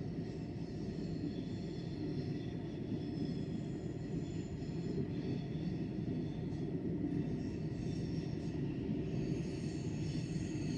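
Steady low rumble of railway-station ambience, with faint high tones over it.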